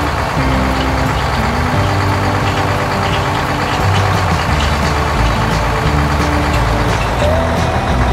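Engine sound effect of a combine harvester running steadily under background music with a moving bass line.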